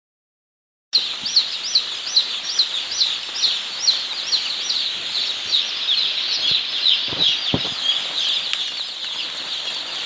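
Hundreds of young chicks peeping together in a brooder: a dense chorus of high, short cheeps that starts about a second in.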